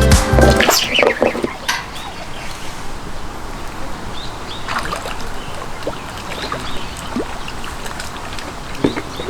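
Background music ends about half a second in. After that there is a steady ambient hiss with scattered short chirps and clicks.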